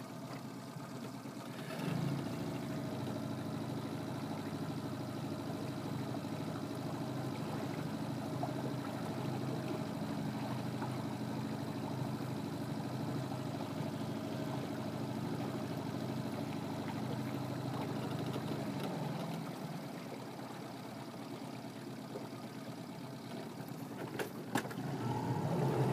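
Boat motor running steadily with an even hum. It starts about two seconds in and eases off around nineteen seconds.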